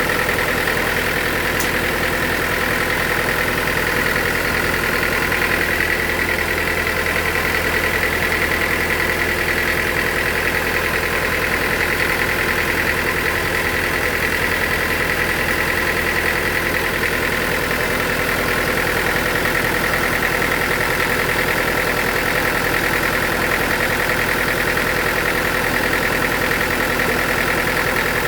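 Sawmill machinery running steadily: a constant low hum with a steady high whine over it, unchanging throughout.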